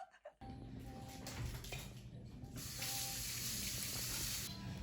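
Faint hiss of running water, like a tap, starting about two and a half seconds in and stopping near the end, over a low steady hum.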